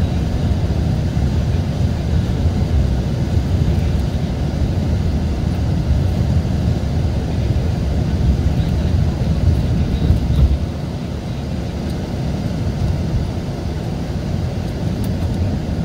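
Mercedes-Benz O-500RSD coach's diesel engine running as a steady low rumble, easing off slightly about ten and a half seconds in.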